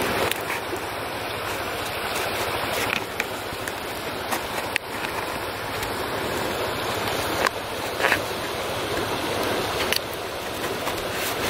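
Steady rushing of stream water, broken by a few short, sharp crackles as stiff birch bark is bent and pinned with a small wooden peg by gloved hands.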